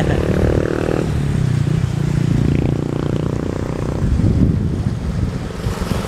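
Sea wind rumbling on the microphone, under a steady engine drone that comes and goes, strongest in the first second and again from about two to four seconds in.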